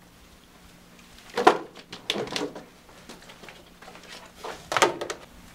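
Several short knocks and handling sounds, the loudest about a second and a half in and another near the end, over a faint steady low hum.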